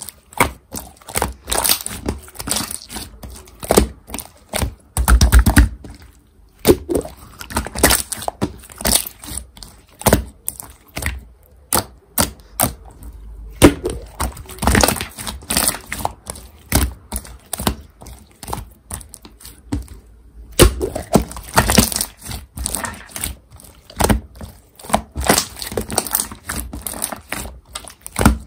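Blue glitter pearl slime being stretched, pressed and squished by hand, giving a dense, irregular run of sticky clicks and crackles with short pauses between handfuls.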